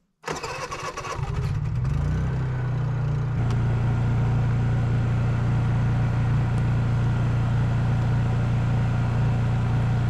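Honda EU3000is inverter generator starting: the engine catches right away, its speed climbs unevenly for the first few seconds, then settles into a steady hum.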